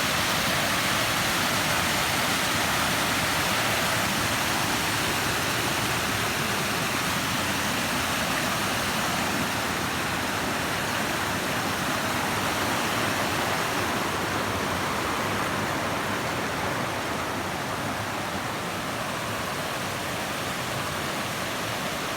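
Waterfall: a steady rush of falling water, a little quieter in the second half.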